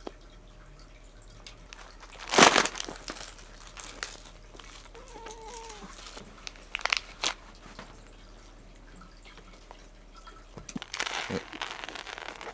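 Plastic cat-treat packets rustling and crinkling, with one loud rustle about two seconds in and a longer stretch of crinkling near the end.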